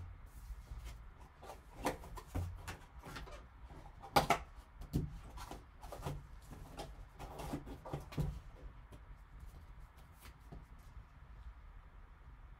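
Sealed cardboard trading-card box being opened and handled by gloved hands: faint scattered clicks, scrapes and rustling of cardboard, with a sharper click about four seconds in.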